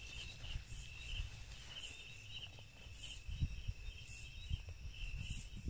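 Crickets chirping in a steady, regular rhythm through a night field, with a fainter high insect buzz pulsing above. A few low thumps come in the second half.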